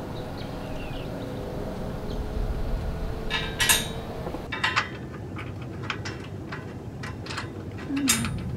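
Steel side armor clinking and knocking against its frame mounting brackets as it is lifted and rolled into line. The sharp metal clicks and knocks start about three seconds in and come irregularly, the loudest two near the middle.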